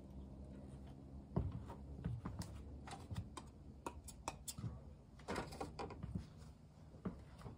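Irregular light clicks and taps from a painter moving about and handling her brush and painting gear, over a faint low steady hum.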